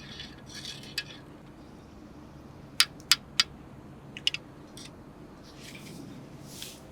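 Camp gear being handled: a few sharp clicks, three in quick succession about three seconds in and two more about a second later, with soft rustling between.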